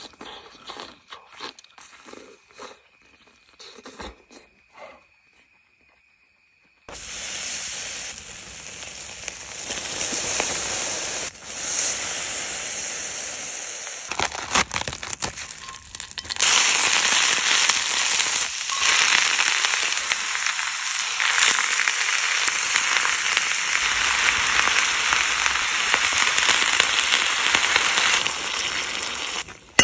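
Food sizzling and crackling as it cooks on a charcoal grill. It starts suddenly about seven seconds in after a few faint clicks, and grows louder about halfway through.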